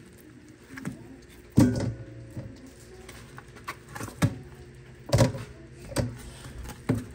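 Kitchen clatter: about six irregularly spaced knocks, several followed by a short ring, the loudest about a second and a half in.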